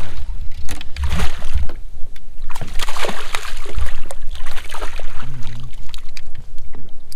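Wind buffeting the microphone in a low, uneven rumble, with water splashing and sloshing around the boat.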